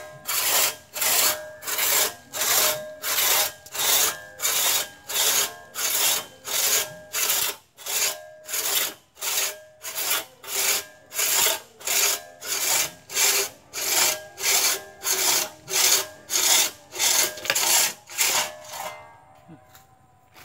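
Two-man crosscut hand saw cutting through a tree trunk, each push and pull a rasping stroke, about two strokes a second in a steady rhythm. The sawing stops near the end.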